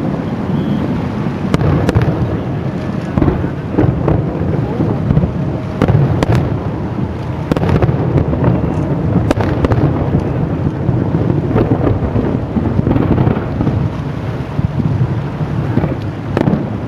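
Aerial fireworks display: a continuous rumble of shell bursts with many sharp cracks and pops scattered through it.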